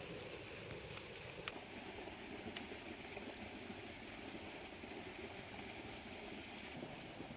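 Steady rush of a small, fast-flowing stream running white over a drop, with a few faint clicks in the first few seconds.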